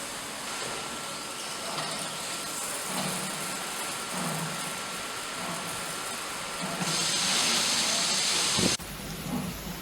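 Automatic tunnel car wash running: a steady wash of water spray and machinery noise, with a faint whine through most of it. About seven seconds in a louder hiss of spray rises, then cuts off abruptly near the end.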